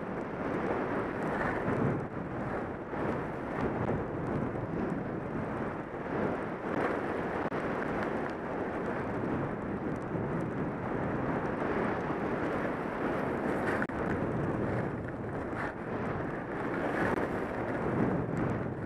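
Skis running over groomed snow during a downhill run, a steady hiss and scrape that swells slightly on turns, mixed with wind rushing over a helmet-mounted camera's microphone.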